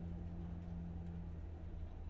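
Steady low hum in the room, with a second, slightly higher hum tone that cuts off about one and a half seconds in.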